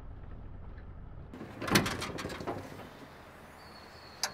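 A faint low hum, then a clatter of several knocks and clicks, the loudest about a second and a half in. Near the end a faint high steady tone sounds, broken by one sharp click.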